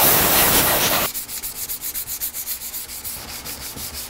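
A compressed-air blow gun hisses for about a second, clearing sanding dust off the painted tailgate. Then 120-grit sandpaper is rubbed by hand over the clear coat in quick back-and-forth strokes, several a second.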